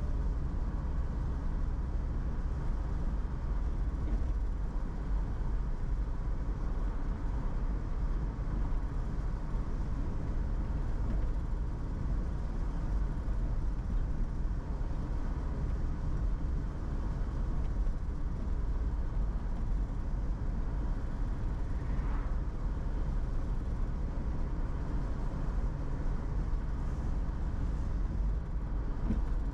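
A car driving at a steady speed: a constant low rumble of engine and tyre noise on the road, with no change in speed.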